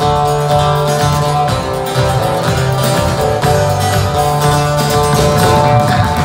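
Live band playing on several strummed acoustic guitars, over a steady low bass line and light percussion.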